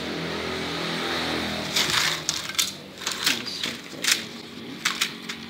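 Thin dry bamboo strips clattering and clacking against each other and the tiled floor as they are picked up and handled, a string of sharp clicks from a couple of seconds in. Before that, a steady engine hum that slides down in pitch, like a motor vehicle passing.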